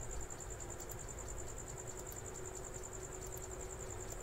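Faint background noise: a steady, high-pitched whine that pulses rapidly and evenly, over a low hum and hiss.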